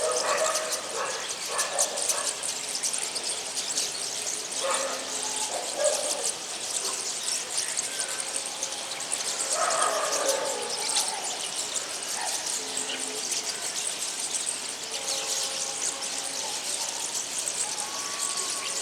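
Small birds chirping on and off over a steady high-pitched hiss.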